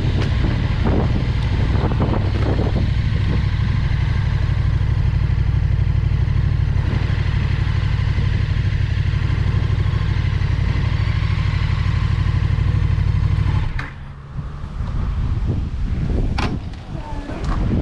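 KTM 1290 Super Duke R's V-twin engine running steadily, then cutting out abruptly about fourteen seconds in as the bike is braked hard. A few sharp knocks and clatter follow near the end as the bike goes down on the road.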